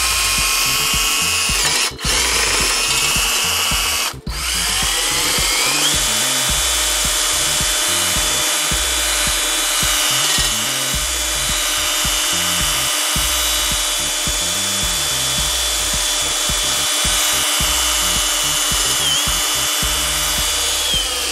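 Cordless drill spinning a slotted steel rod wrapped with folded emery cloth inside a steel bicycle seat tube, the abrasive scrubbing the tube's rusty inner wall. The drill cuts out briefly twice in the first few seconds and winds back up each time with a rising whine, then runs steadily.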